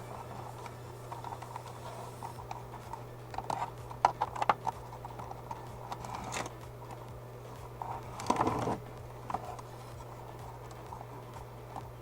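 Wires of a wiring harness being handled and bent into place on a workbench: a cluster of small clicks, then two short scrapes, the second one longer, over a steady low electrical hum.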